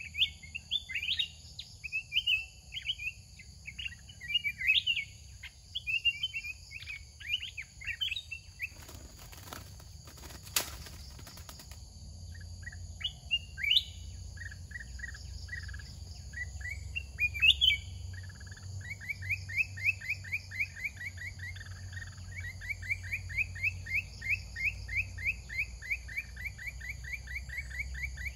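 Bulbuls calling at a decoy trap cage: quick, scratchy chirping phrases, then from about nineteen seconds in long fast runs of repeated notes that rise and fall in pitch. A brief rustle comes about ten seconds in.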